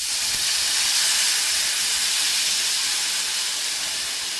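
Water poured into a hot kadai of vegetables sautéed in oil, hissing loudly as it hits the hot pan and flashes to steam. The hiss peaks about a second in and slowly dies down.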